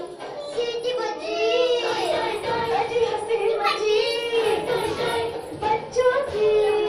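Children's voices singing a song with music, in long held, melodic notes.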